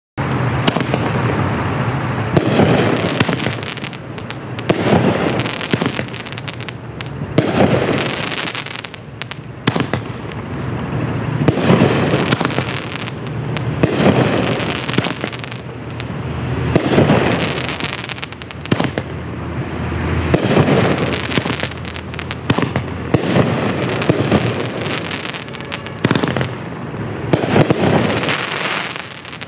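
Black Cat Silver Palms 500-gram, 12-shot consumer firework cake firing shot after shot, one loud burst every two to three seconds.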